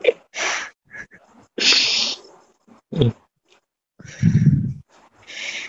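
A person on a phone call makes four short, breathy bursts, sharp exhales or stifled laughs, with a brief voiced sound near the middle.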